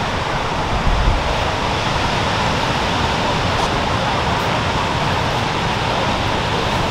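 Steady rushing noise of ocean surf and wind on the microphone, with a stronger low buffet about a second in.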